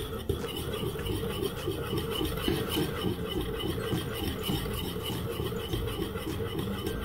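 Metal whisk beaten fast round a stainless-steel saucepan of thickened chocolate cream, scraping the pan in a quick, even rhythm of several strokes a second.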